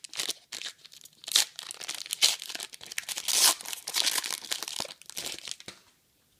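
Foil trading-card pack wrapper being opened, crinkling and crackling in irregular bursts that die away near the end.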